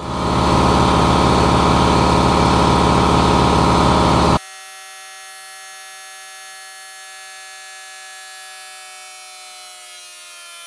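Air compressor running loud. About four seconds in the sound drops suddenly to a quieter steady whine that sags slightly in pitch near the end.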